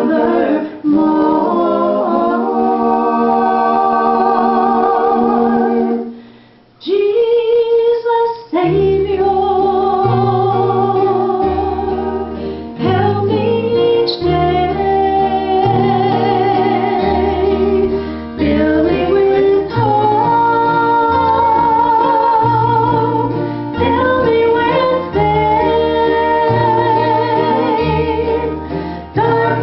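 Several voices singing held chords in close harmony, female voices among them. After a short break about seven seconds in, a low bass line stepping from note to note joins under the singing.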